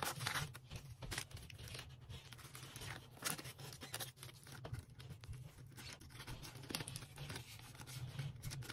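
Paper banknotes rustling and flicking in short, irregular bursts as they are counted by hand and slipped into a plastic binder pouch, over a faint low hum.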